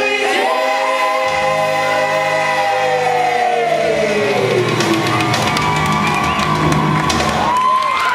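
Live show music with a singer holding long notes, the first sliding slowly down in pitch, over sustained low bass notes.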